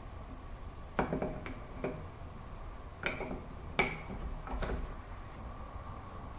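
Steel rotary table being set down and seated by hand on the milling machine's support: light metal clinks and knocks in two short clusters, about a second in and again around three to four seconds in, some with a brief ring.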